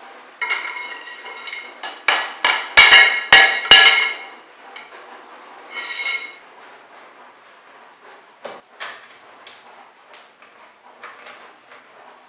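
A metal tube knocked down over a bicycle fork's threaded steerer to seat the headset crown race: ringing metallic knocks, five close together between about two and four seconds in and one more near six seconds, then a few lighter clicks.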